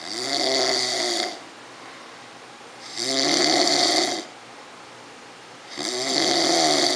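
Loud snoring: three long snores about three seconds apart, with quieter breathing between.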